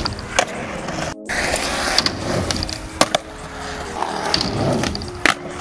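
Skateboard wheels rolling on concrete, with several sharp clacks of the board popping and landing. The loudest is about three seconds in, and the sound cuts out briefly about a second in.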